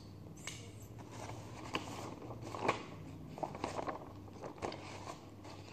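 Faint handling noises: light scattered clicks and paper crackles as a sheet of paper is picked up and lowered over a cup of bubbly paint, over a low steady hum.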